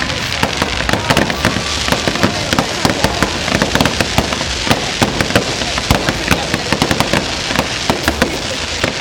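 Fireworks going off: a dense run of crackling pops and small bangs, many a second, over a steady hiss.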